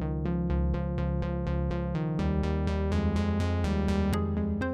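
Background electronic music: a synthesizer playing quick, evenly spaced repeated notes over a sustained bass, the bass changing about two seconds in.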